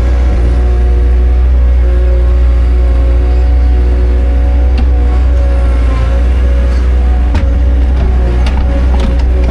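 Farm vehicle engine running steadily under a load of lime, with a strong low hum and a steady drone, and a few clicks and knocks in the last few seconds.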